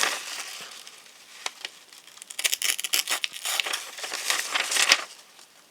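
A cheap stainless-steel folding-knife blade slicing through a sheet of notebook paper, a papery rasping and crackling with short tearing strokes; it starts softly and becomes busier about two seconds in, then stops shortly before the end. This is a paper-cutting test of the knife's factory edge.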